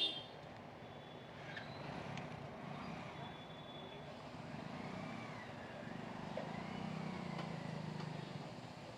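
Low hum of vehicle engines idling and moving around a petrol station forecourt, swelling and fading, with a short sharp sound right at the start and a few faint clicks.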